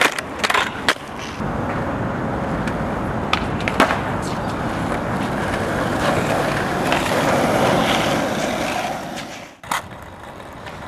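Skateboard wheels rolling on a hard court surface, with sharp clacks of the board being popped and landing in the first second and another clack about four seconds in. The rolling cuts off suddenly near the end.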